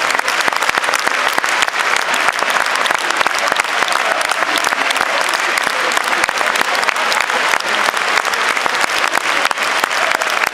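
Football stadium crowd applauding: a dense, steady mass of clapping from the stands.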